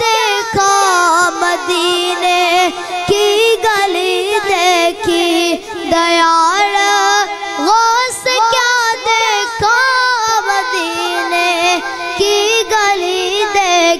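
A boy singing a devotional Urdu kalam solo into a microphone: a long, continuous, ornamented melodic passage with wavering pitch and no clear words.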